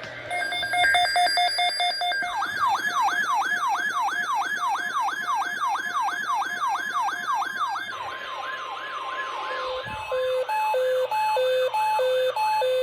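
Electronic siren tones in sequence: a rapidly pulsing steady tone for about two seconds, then a fast yelp sweeping up and down several times a second, then a two-note hi-lo alternating about twice a second near the end.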